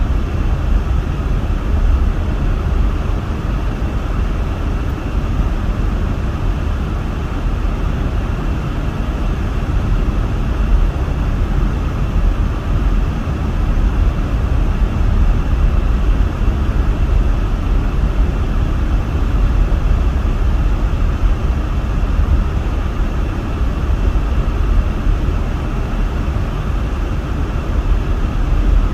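Steady noise inside a car cabin while driving on snowy roads: a low rumble from the engine and tyres, under the hiss of the heater and defroster fan blowing on high.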